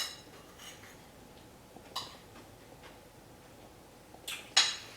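Low room tone broken by a sharp click at the start, a soft tick about two seconds in, and two short hissy sounds near the end.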